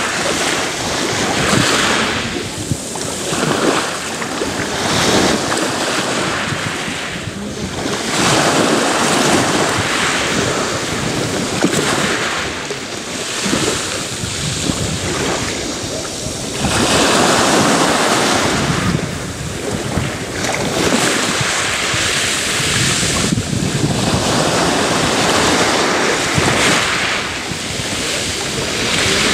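Sea waves breaking and washing on the shore, a continuous surf that swells and eases every few seconds. Wind buffets the microphone.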